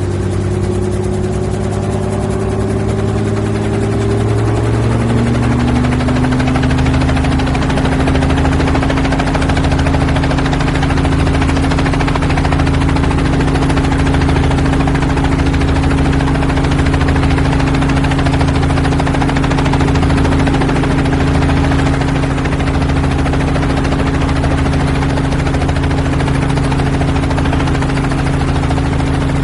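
Helicopter heard from inside the cabin, its engine and rotor rising in pitch and loudness over the first six seconds as power comes up, then running steady with a slow rhythmic beat underneath.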